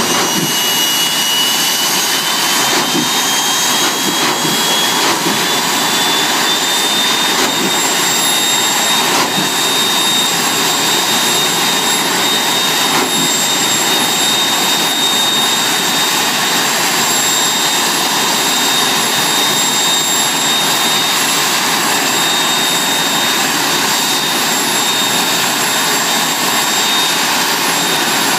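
Turbine jet engines of jet-powered drag cars running at the start line: a loud, steady jet roar and hiss, with a high turbine whine that rises slowly in pitch over the first several seconds and then holds.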